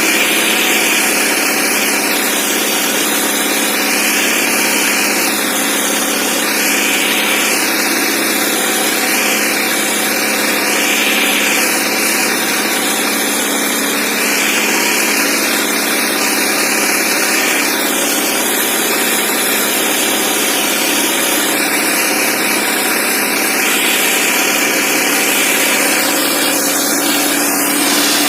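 Diesel engine of an Indo Farm 3055 DI tractor running steadily, loud and without a break.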